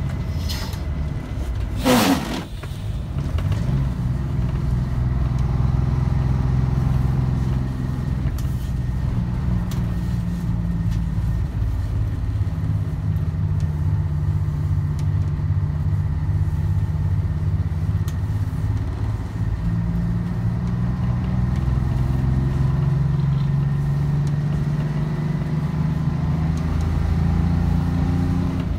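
Bus's Detroit Diesel engine running under way, heard from inside the cab: a steady low drone whose note shifts a few times. A loud sharp knock about two seconds in.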